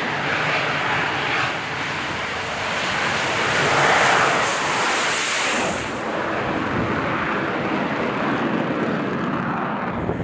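AV-8B Harrier's Pegasus turbofan running at full power on a short takeoff roll, a loud jet noise that peaks about four seconds in; its high hiss falls away around six seconds as the jet lifts off down the deck.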